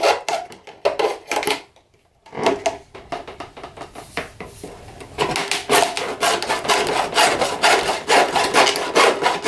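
Hacksaw cutting through a vinyl gutter, the blade rasping back and forth through the plastic. There is a brief pause about two seconds in; then the strokes start again and grow louder and steadier from about five seconds in.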